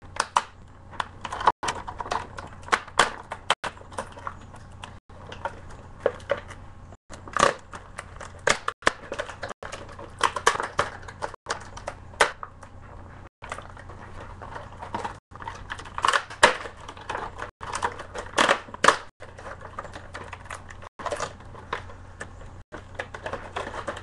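Headphone retail packaging, cardboard and plastic, handled and pulled apart by hand: irregular crinkling, scraping and sharp clicks over a steady low hum.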